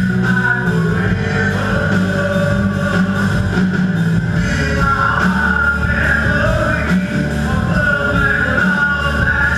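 Live rock band playing: electric guitars, bass and drum kit, with a sustained melody line and vocals over the top.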